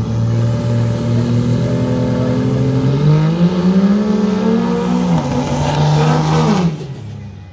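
Turbodiesel pickup trucks in a dirt drag race: the engines run steadily at the line, then rev up about three seconds in as they launch, with a rising turbo whistle over the engine note. The pitch drops partway through, and the sound falls away sharply near the end.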